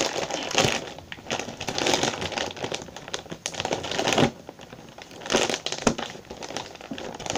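Thin plastic bags crinkling and rustling as hands squeeze a giant Ziploc bag shut over air-filled bags inside it, with irregular crackles and a few sharper snaps.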